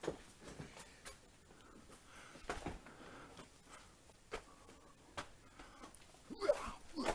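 Irregular footsteps, scuffs and small knocks on loose rock and rubble, with a louder cluster of knocks near the end.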